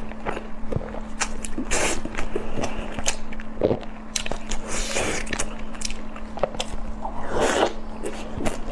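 Someone biting and chewing crunchy food close to the microphone: a run of irregular crisp cracks and crunches. A faint steady hum sits underneath.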